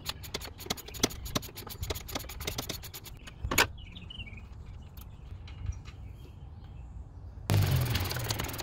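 A quick run of small metallic clicks and taps from hand work in an engine bay, ending with a louder knock about three and a half seconds in. Background music with percussion comes in about a second before the end.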